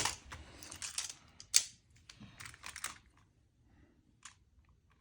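Plastic 3D magnetic building tiles clicking and clacking as they are handled and snapped together: a run of sharp, irregular clicks, the loudest at the very start, with a faint last click a little after four seconds.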